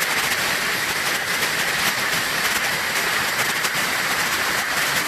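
Steady rush of a tall waterfall, about 130 feet high, heard up close: loud, even noise of falling water.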